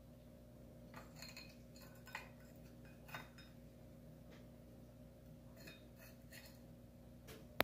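Light taps and clicks of chopsticks against a plate, a few around one to three seconds in and a few more around six seconds, with one sharper click near the end.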